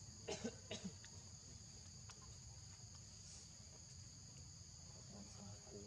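Steady high-pitched insect drone, two even tones held without a break, with a quick cluster of four short sharp sounds about half a second in.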